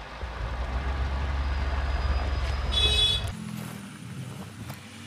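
Steady low rumble of passing road traffic, with a short high-pitched beep about three seconds in. Right after the beep the rumble cuts off suddenly, leaving only faint background noise.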